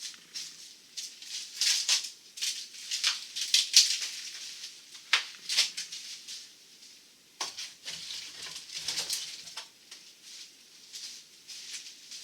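Irregular rustling, scraping and rattling of demolition debris being cleared up, made of many short strokes of varying loudness with a brief lull about halfway through.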